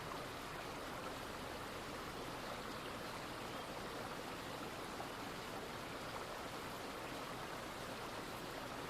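Steady running water of a brook, an even rush with no breaks.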